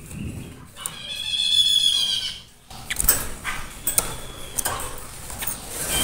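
A tepus lurik babbler gives one long, harsh, buzzing call of about a second and a half, starting about a second in. Scattered sharp clicks follow.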